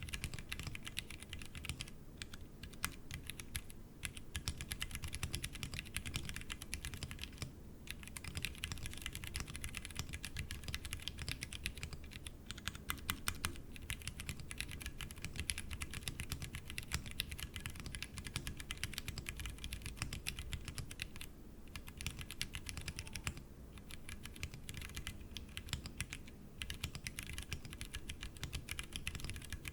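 Continuous fast typing on a Tofu60 60% mechanical keyboard with stock Cherry MX Brown tactile switches, set straight on the desk without a deskmat: a dense run of key clicks and clacks with a few short pauses.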